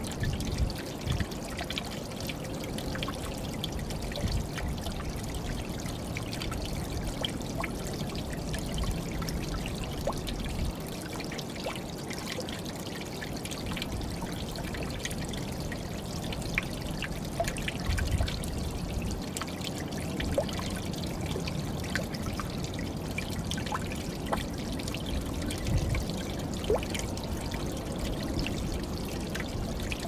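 A small, gentle waterfall of seep water splashing and trickling steadily into a deep plunge pool, with a few brief low bumps.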